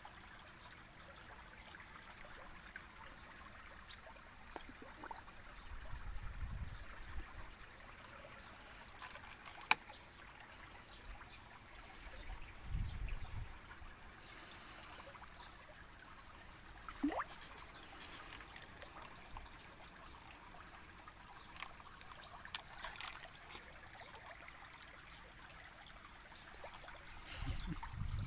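Shallow stream water trickling steadily over rocks, with a few low rumbles and a sharp click.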